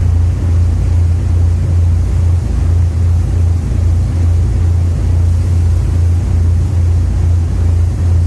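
Passenger ferry's engines droning steadily underway, a low hum that pulses in level, over a rush of water and wind.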